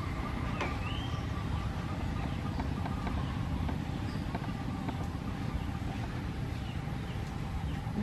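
Forest ambience: a steady low rumble with scattered short bird chirps and whistles over it, one a rising whistle about a second in.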